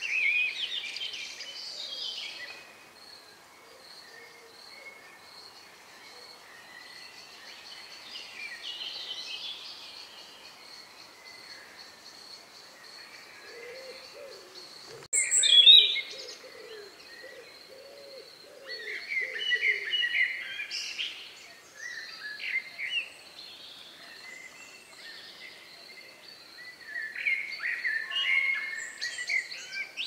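Dusk birdsong: several songbirds singing separate phrases, with a loud burst about halfway and more phrases in the second half, over a steady thin high tone. Around the middle a short run of low repeated notes sounds beneath the song.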